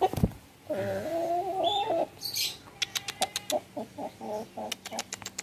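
Pelung chicken calling: one wavering call lasting about a second and a half, then a run of short clucks with a few light clicks. The bird is recovered from ngorok after four days of herbal treatment, and its calls are free of the snoring rattle.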